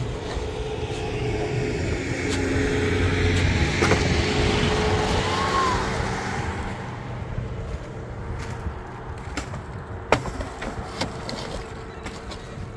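A road vehicle passing: a broad rushing noise swells for a couple of seconds and fades away. Scattered scrapes and knocks come from a shovel working wet concrete in a metal wheelbarrow.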